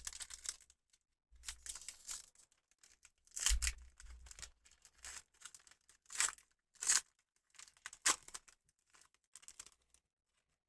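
Foil booster-pack wrapper being torn open and crinkled: a string of short ripping and rustling sounds, the loudest about three and a half, six, seven and eight seconds in.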